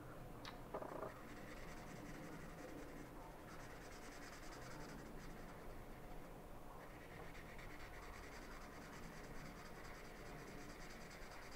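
Faint, steady scratching of a felt marker tip rubbing over paper in colouring strokes. The marker is drying out.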